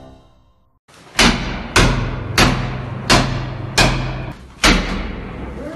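The tail of a music sting fades out, then from about a second in comes a series of six heavy blows on a door, roughly one every two-thirds of a second, each followed by a ringing echo: a flat's door being battered open during a forced entry.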